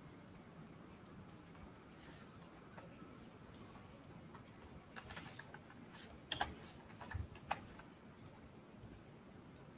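Faint, scattered clicks of a computer keyboard and mouse, with a few louder keystrokes in the second half.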